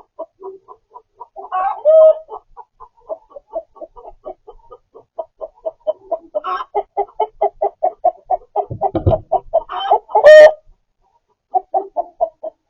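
Chickens clucking in a rapid, steady run of short clucks, about three or four a second, with a louder call about two seconds in and a loud squawk near the end. There is a low thump just before the squawk.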